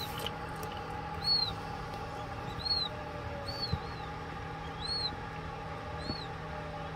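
Newly hatched quail chicks peeping: short, high, single chirps that rise and fall, about one a second, over the steady hum of the incubator.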